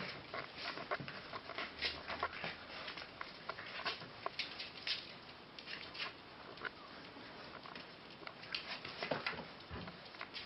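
Puppies' claws and paws pattering and clicking irregularly on a tiled floor as they scuffle over a plush toy, with scattered scrapes and knocks.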